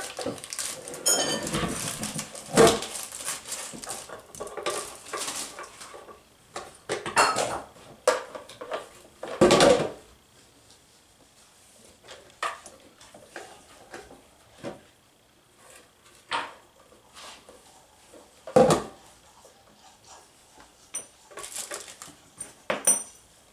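Plastic parts and small hardware of a kids' ride-on toy car clattering and knocking as it is assembled, with a wheel being fitted onto its axle. Scattered clicks and rattles, with a few louder knocks spread through, busiest in the first half.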